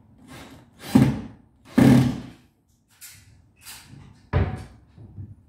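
White cabinet door on concealed cup hinges being swung to and knocking shut against the cabinet. Three loud knocks come about one, two and four and a half seconds in, with fainter knocks between them, as the hinge adjustment is checked.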